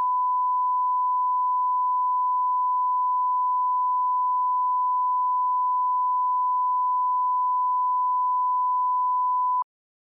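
Steady 1 kHz line-up test tone, the pure reference tone that runs with colour bars to set audio levels. It cuts off suddenly near the end.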